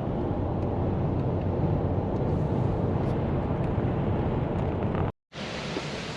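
Steady low road-and-engine rumble of a moving vehicle heard from inside. About five seconds in it cuts off abruptly, and after a brief silence a quieter, brighter hiss follows.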